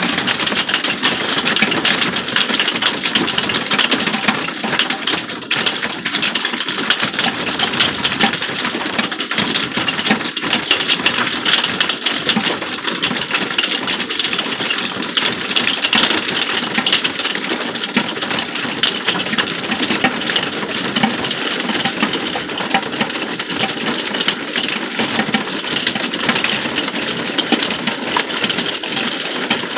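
Heavy rain mixed with hail pelting an RV, a dense steady hiss made of countless small hard taps.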